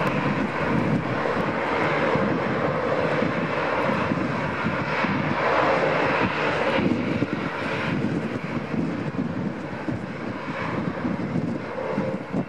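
Jet engines of an Airbus A320-214, CFM56 turbofans, running at taxi power. The sound is a steady rushing rumble with a faint steady tone, a little louder in the first half.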